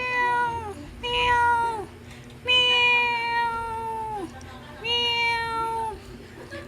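Domestic cat meowing four times in long, drawn-out calls that each slide down at the end, the third the longest. The owner takes these meows as the cat still being mad at her.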